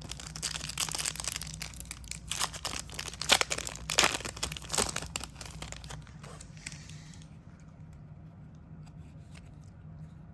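A trading-card pack's wrapper being torn open and crinkled, with rapid crackling for about six seconds, then only faint light clicks of handling.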